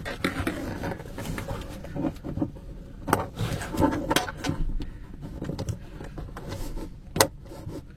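Handling noise of a foam rubber strip being pushed behind a plastic A-pillar trim panel: irregular light scrapes, rubs and clicks of plastic, with one sharper click about seven seconds in.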